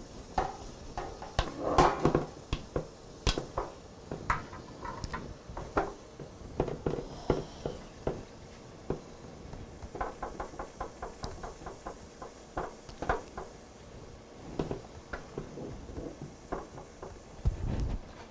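Utensil scraping and knocking against a mixing bowl and baking pan as sticky gingerbread batter is scooped into the pan: scattered clicks and knocks, with a quick run of taps about ten seconds in.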